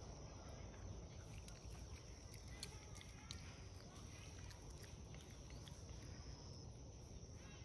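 Faint outdoor background noise: a low, even rumble with a thin steady high-pitched tone and a few soft clicks, and nothing clearly louder.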